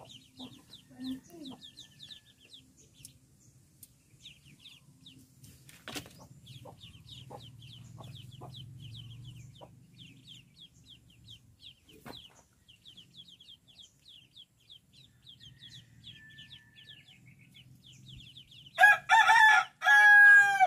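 A brood of ducklings peeping steadily in quick, short, high chirps. Near the end a rooster crows loudly in two parts.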